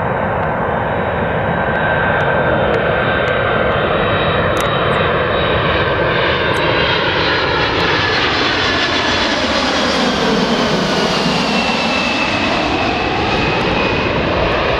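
Boeing 767 on landing approach flying low overhead: its two turbofan engines make a loud, steady jet roar, with a high whine that falls in pitch as the aircraft passes, about ten seconds in.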